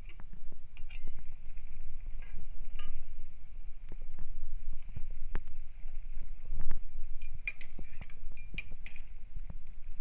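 A pot of kangsoi, a Manipuri vegetable stew, boiling hard: a steady low rumble with many small pops and clicks.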